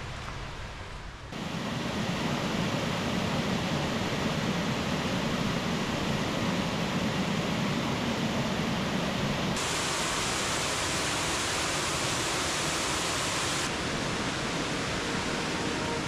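Steady rush of water falling over a small waterfall on a creek. It jumps louder about a second in, and turns brighter and hissier for a few seconds in the second half.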